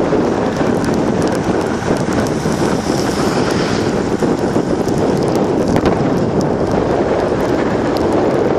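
Steady, loud rushing of wind and road noise while riding in a moving vehicle.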